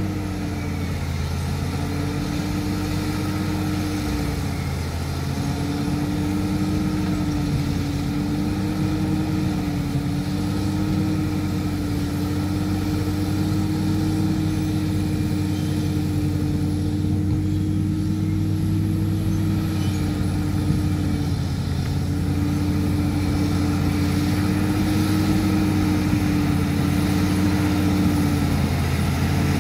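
Caterpillar D7 bulldozer's diesel engine running steadily, its pitch dipping briefly now and then, with a faint steady high whine above it.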